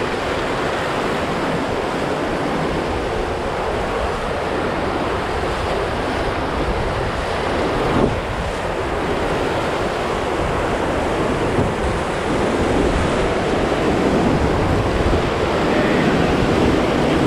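Steady rushing whitewater of river rapids around a drift boat, with wind buffeting the microphone.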